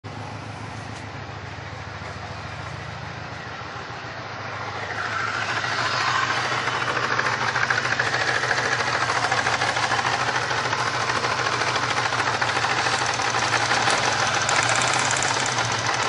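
Supercharged 3.8-litre V6 of a 1999 Pontiac Grand Prix running steadily with a misfire, caused by a bad ignition coil for cylinders 1 and 4. It grows louder and brighter about five seconds in.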